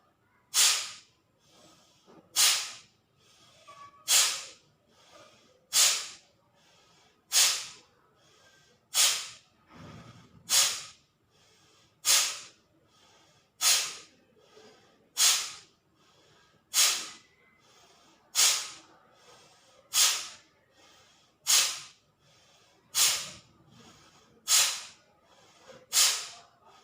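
A woman doing a pranayama breathing exercise, pushing out short, forceful exhalations with her face scrunched. Each is a sharp hissing burst of breath, about one every second and a half, with faint breathing in between.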